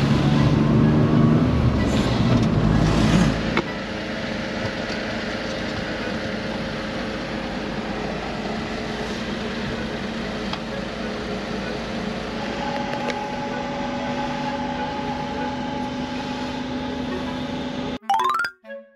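Car engine and road noise heard from inside the cabin while driving. After about three and a half seconds it gives way to a quieter steady hum inside a parked car. Near the end it cuts out into a quick rising sweep and a few short notes.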